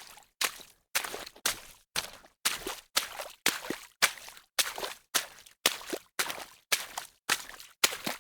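Footsteps wading through shallow water: a steady walking pace of about two splashing steps a second, each a sharp slap of the foot into the water followed by a short slosh.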